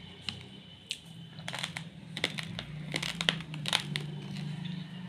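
Hand rummaging in an open plastic packet of raw basmati rice: dry grains rustling and clicking against each other while the plastic crinkles, in a run of sharp crackles that thickens about a second and a half in.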